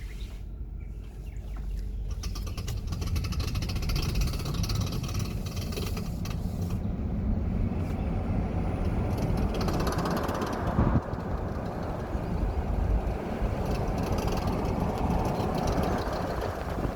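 Tesla Model X Long Range (Raven) driving with a grinding, knocking noise over a steady low rumble: rapid clicking between about two and six seconds in, and one sharp knock about eleven seconds in. It is a fault on a brand-new car that changing the suspension height does not cure.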